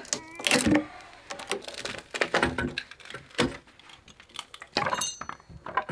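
Irregular knocks, taps and clatter of old wooden shed parts being handled and shifted during demolition, with a quick cluster of knocks about five seconds in.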